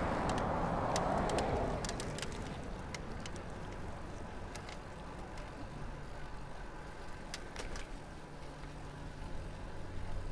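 Bicycle riding noise: a rush of noise fades over the first two seconds, leaving quiet tyre and road noise with scattered light clicks and rattles from the bike.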